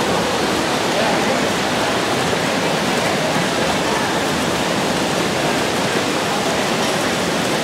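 Steady rushing water noise of a freestyle swimming race in an indoor pool: several swimmers splashing and kicking along the lanes.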